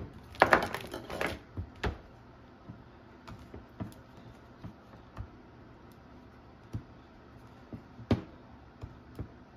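Plastic clicks and light knocks from a Kawasaki Ninja 400 airbox being handled while its rubber intake velocity stack is worked around the edge of the opening by hand. A quick run of clatter comes in the first second or so, then scattered single clicks, one sharper knock near the end.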